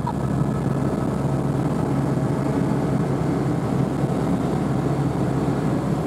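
Helicopter engine and rotor noise heard inside the cabin in flight: a steady low drone that does not change.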